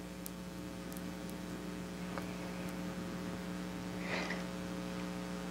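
Steady electrical hum with a few faint ticks and a brief soft rustle about four seconds in.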